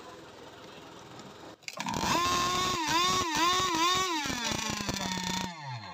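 Small two-stroke petrol engine of an RC racing catamaran, starting about two seconds in and revving in several quick throttle blips. It then holds a lower, steadier note for about a second before cutting off suddenly and winding down.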